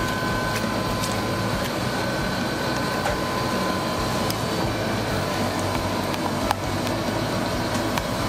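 Steady hum of kitchen machinery with faint high whines over it. Light clicks of stainless-steel utensils come through it, with one sharp tap about six and a half seconds in.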